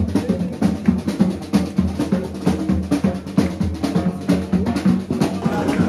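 Music with drums to the fore: a fast, busy run of drum hits over a steady low bass.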